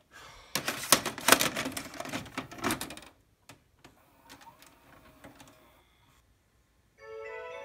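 A VHS cassette going into a VCR: the loading mechanism clatters and clicks loudly for a couple of seconds, then gives quieter clicks and a faint motor hum as the tape is drawn in. Near the end, music with bell-like notes starts.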